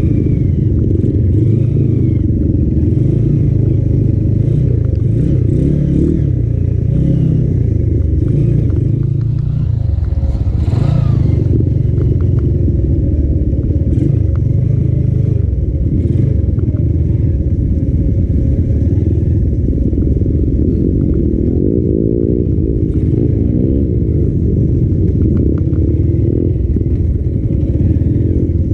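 Motorcycle engine running at low revs while riding a rough dirt trail, with clatter and knocks from the bike jolting over the ground. The revs rise briefly about ten seconds in.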